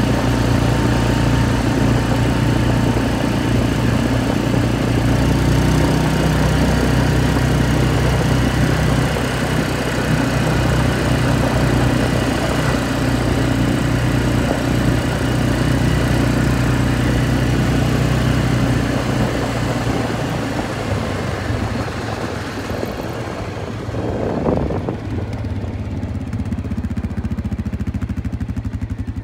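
ATV engine running steadily under way on a gravel road. About two-thirds of the way through the engine note eases off and becomes quieter, with a brief swell shortly after.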